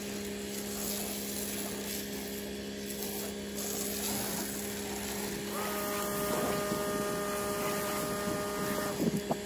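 Greenworks electric pressure washer running, a steady motor and pump hum under an even hiss of foam cannon spray. About halfway through, a higher steady tone joins in for about three seconds.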